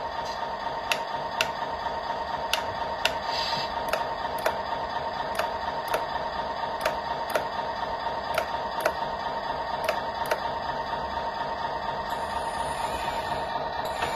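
A remote-control metal tracked loader, modelled on a 953 track loader, running: a steady electric whine with a sharp tick about twice a second. The ticking stops a little after ten seconds in, and a brief hiss follows near the end.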